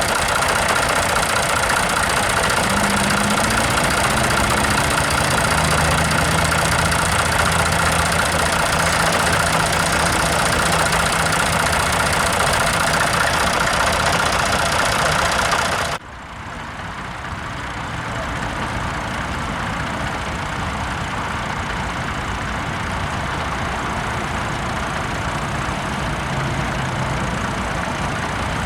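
Tractor engine running at idle under a dense, steady noise. About sixteen seconds in, the sound drops suddenly and then carries on quieter.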